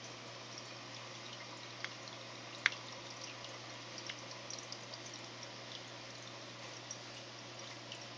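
Aquarium water circulation: a steady trickle and fizz of moving water over a low, steady pump hum, with scattered small ticks and one sharper click about two and a half seconds in.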